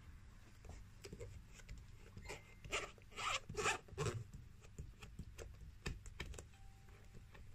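Hands rubbing and pressing across a leather shoe sole: a few short scratchy strokes of skin sliding on leather, bunched together near the middle, with light handling knocks.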